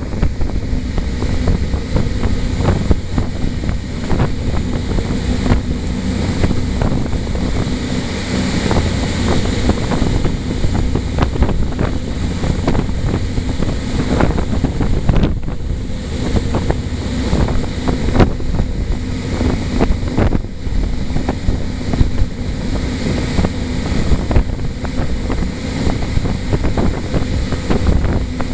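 Harbour ferry under way: wind buffeting the microphone over the steady drone of the ferry's engines, with the wake rushing along the hull.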